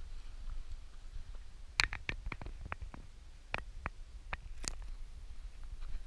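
A run of about ten sharp, irregular clicks and taps, from a hiker's steps and gear on a rocky mountain path, between about two and five seconds in, over a steady low wind rumble on the microphone.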